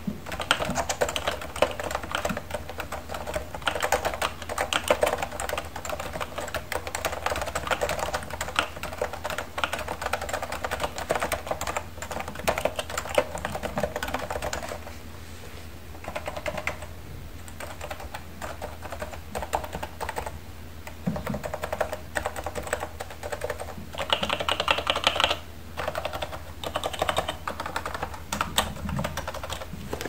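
Typing on a Realforce 10th Anniversary low-noise keyboard with Topre electrostatic-capacitive switches: rapid, continuous keystrokes for about the first half. The strokes then thin out to scattered presses, with another quick flurry a little past two-thirds of the way through.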